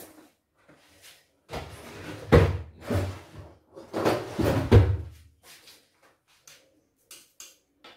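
Kitchen cupboard being opened and shut: a rumbling clatter with two sharp knocks, one about two and a half seconds in and one just before five seconds.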